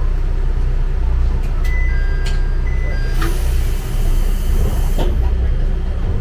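Hojo Railway diesel railcar rumbling low and steady, with a few electronic beeps in two alternating pitches and a couple of clicks, then a hiss of released compressed air lasting about two seconds.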